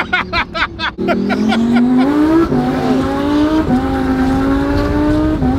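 Twin-turbocharged Audi R8 V10 accelerating hard through the gears: a quick run of sharp pops in the first second, then an engine note that climbs steadily and drops at quick upshifts about two and a half, three and a half and five seconds in.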